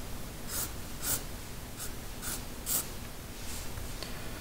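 Pen strokes scratching on paper: about six quick shading strokes, each a short hiss, spaced roughly half a second apart.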